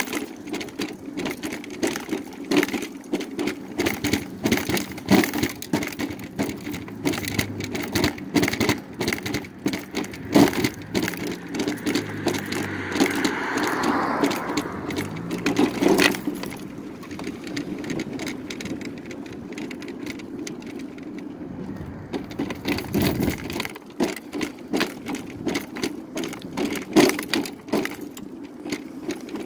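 Electric mobility scooter running along a concrete sidewalk with a steady hum, its body and front basket rattling and clicking over the pavement. A sharp knock comes about sixteen seconds in.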